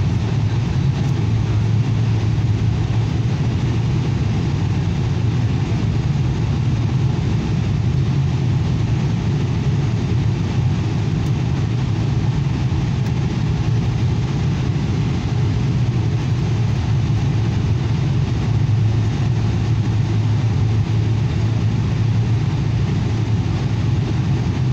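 Airliner cabin noise heard at a window seat during the descent on approach: a steady low drone of the engines and rushing air, unchanging throughout.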